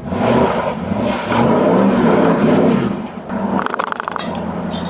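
An 87 Chevy's engine revving up and down a few times, then settling to a steady idle. A quick rattle of clicks comes a little before the end.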